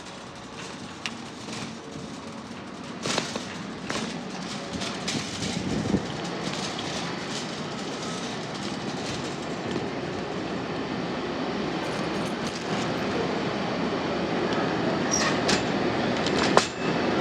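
Shopping cart rolling, its wheels rattling over the floor, with scattered clicks and knocks, growing slowly louder.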